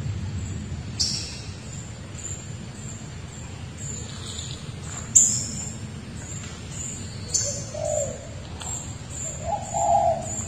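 Forest birds calling: a short high chirp repeated about twice a second, with a louder high call about five seconds in. Two lower calls come near the end, over a steady low background noise.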